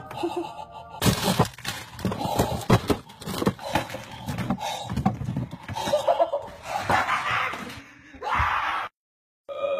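Packages of frozen food being grabbed from a freezer and set down hard on a stone countertop: a quick, busy run of knocks, thuds and crinkling packaging that cuts off abruptly near the end.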